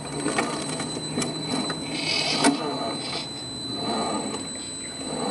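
Electric motor and gearbox of an RC4WD Trail Finder 2 scale rock crawler whining in short bursts of throttle as it climbs rock, with sharp knocks of tyres and chassis against stone, the loudest about two and a half seconds in.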